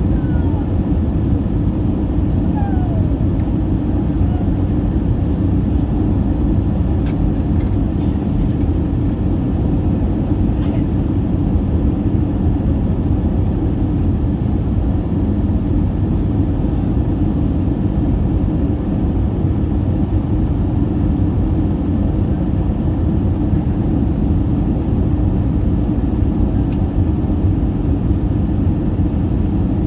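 Steady roar of an Airbus A319's jet engines and rushing air, heard inside the cabin from a window seat over the wing while descending on approach, with a faint steady high whine above it.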